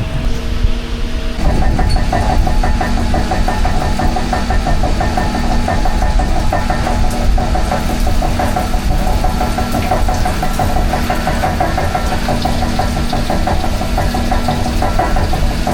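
An engine running steadily. Its sound gets fuller and busier about a second and a half in, then holds even.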